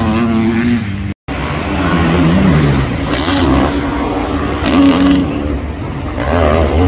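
Motocross bikes racing on the track, their engines revving up and down as they accelerate and shift. The sound cuts out briefly about a second in.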